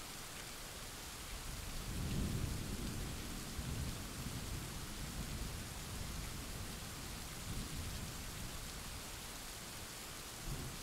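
Thunderstorm: steady rain hiss with a long roll of thunder that swells about two seconds in and rumbles on in several surges before fading, then a brief low rumble near the end.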